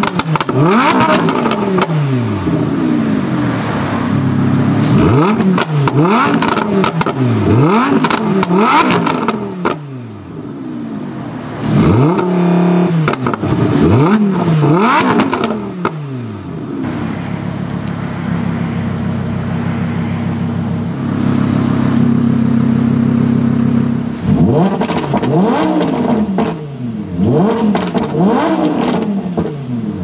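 2015 Lamborghini Huracán LP610-4's 5.2-litre V10, standing still with the exhaust in Strada (street) mode, revved in a string of quick throttle blips, each rising and falling straight back. After about 17 seconds it settles to a steady idle for several seconds, then more blips follow near the end.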